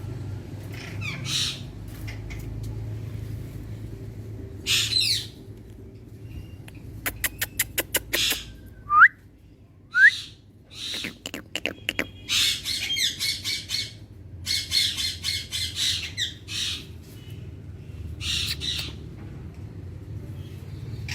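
Indian ringneck parakeet calling: harsh squawks, a quick run of about nine clicking notes, then two short rising whistles about a second apart, followed by bursts of chattering.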